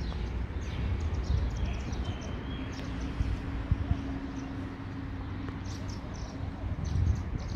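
Outdoor ambience: a steady low rumble with short, high bird chirps now and then, and a faint steady hum through the middle.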